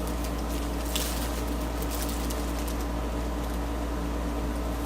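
Steady low background hum, with a faint click about a second in.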